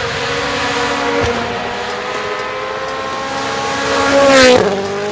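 Rally car engine running hard at steady high revs, then rising sharply and dropping back about four seconds in; this is the loudest moment.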